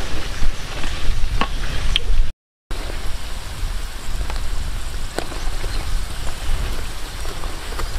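Hot oil sizzling and crackling in a wok as skewered meatballs and fish cakes deep-fry, with a few light clicks. The sound cuts out briefly a little over two seconds in.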